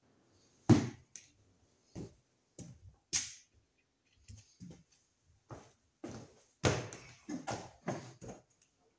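Irregular clicks and knocks from small hardware and tools being picked up and handled while fetching the nuts for a light fixture, the sharpest about a second in and a quicker run of them near the end.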